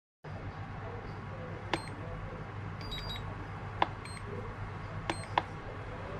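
EV-Peak CD1-XR balance charger beeping briefly at each button press, four short beeps over a steady low hum, as a 2S LiPo balance charge is set and started. A faint whine rises near the end.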